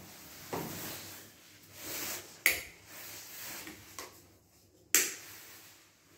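Rustling handling noise with two sharp clicks about two and a half seconds apart and a smaller click between them, from a phone camera being moved about while filming.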